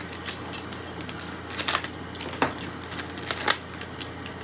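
A small plastic packet holding enamel pins being handled: scattered light clicks and brief crinkles as the pins shift inside.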